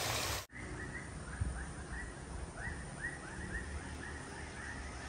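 Oil sizzling in a wok cuts off abruptly about half a second in. It gives way to outdoor ambience: a small animal's short chirping calls repeating rapidly, about four a second, over a low steady background noise.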